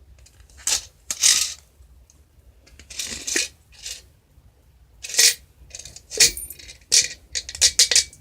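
Coins clinking and rattling inside an Easter-egg piggy bank as it is shaken and the coins are tipped out: a string of sharp clinks, thickest in the last two seconds, one with a brief metallic ring.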